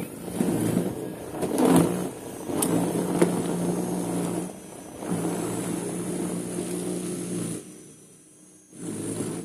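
Worx cordless electric snow thrower running with a steady motor hum in three spells broken by short pauses, with a few sharp knocks in the first few seconds.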